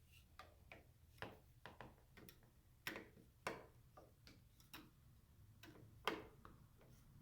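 Faint, irregular metal clicks and scrapes, about a dozen spread unevenly, from a kitchen-knife tip turning the mounting screws of a Kwikset smart lock to tighten them.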